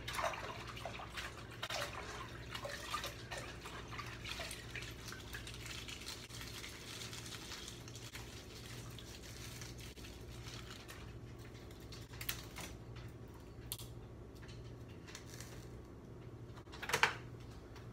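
Water in a cooking pot being stirred: faint sloshing and light clicks, busiest in the first few seconds, over a steady low hum. A few brief knocks follow later, the loudest near the end.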